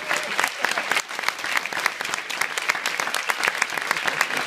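Audience applauding: many hands clapping at once in a dense, even stream.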